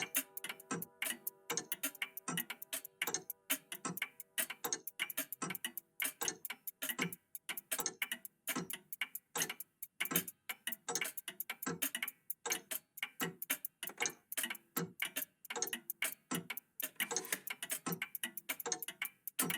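Old mechanical clocks, a cuckoo clock and an antique clock, ticking together in overlapping rhythms, several ticks a second. Lingering ringing tones fade out over the first couple of seconds.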